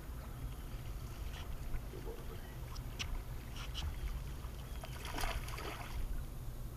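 Steady low rumble with scattered light ticks, as a topwater walking bait is twitched across the water, and a short splashy noise about five seconds in.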